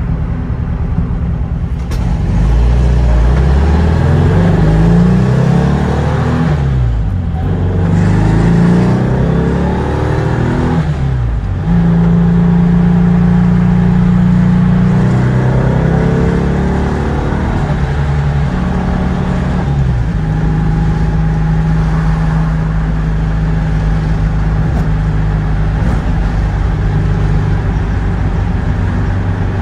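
A 1956 Porsche 356A's air-cooled flat-four engine, heard from inside the cabin, accelerating through the gears. Its revs climb and fall away twice at upshifts in the first dozen seconds. After that it runs at a fairly steady cruising speed.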